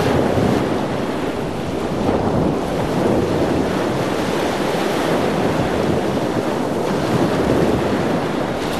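Open-sea waves sloshing at the water's surface, with wind on the microphone; a steady wash of noise with no music.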